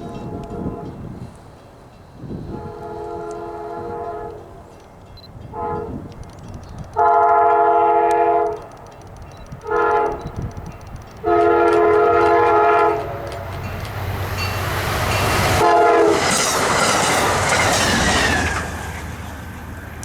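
Diesel passenger locomotive's multi-chime horn sounding a sequence of long and short blasts, the two longest and loudest about seven and eleven seconds in. Near the end the train passes close by with a rush of wheel and rail noise.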